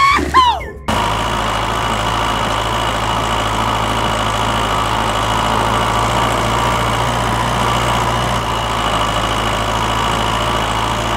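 A tractor engine running steadily at an even speed, starting about a second in after a brief snatch of sliding tones.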